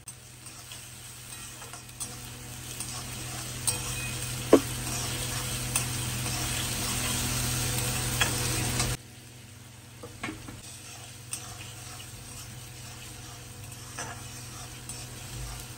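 Chopped onions and tomatoes sizzling in hot oil in a kadai while a metal spatula stirs them, with sharp clinks and scrapes of the spatula on the pan. The sizzle grows louder, drops suddenly about nine seconds in, then goes on more quietly.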